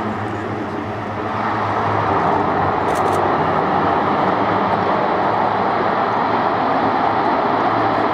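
Airbus A400M's four Europrop TP400-D6 turboprops running with their eight-bladed propellers in reverse pitch, the aircraft reversing along the runway under its own power. A loud, steady propeller-and-turbine drone that builds slightly between one and two seconds in.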